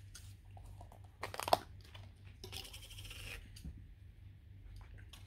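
Close-up eating sounds: chewing and crunching of food, in short irregular bursts, with a sharp click about a second and a half in and a longer crackly crunch around the middle.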